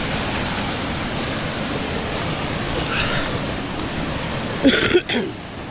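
Waterfall water rushing steadily over a rock slide, an even hiss of falling and flowing water. A brief louder sound breaks through about five seconds in.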